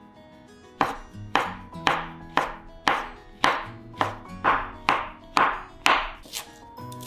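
A kitchen knife chopping on a cutting board, about a dozen even strokes at roughly two a second, over background music.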